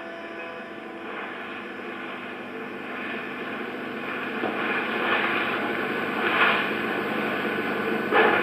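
A steady rushing drone with faint held tones underneath, slowly growing louder, like a theatre sound-design effect.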